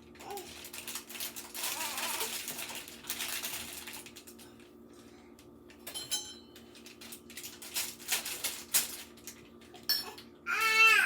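Kitchen handling noises as cookie dough is unpacked and laid out: rustling in the first few seconds, then scattered clinks and knocks.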